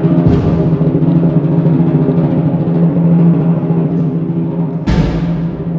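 A Guatemalan funeral march played by a band, with slow, sustained low chords. Two heavy percussion strikes ring out over the chords, one just after the start and one near the end.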